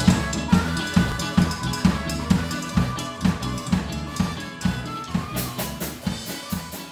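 Live blues-rock band playing a twelve-bar blues, with the drum kit's bass drum and snare keeping a steady beat about two hits a second under electric guitars and bass. The whole band fades out gradually.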